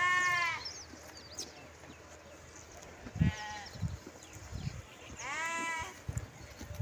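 Sheep bleating three times, each a short wavering cry, the first and last louder than the middle one, with a few soft thumps in between.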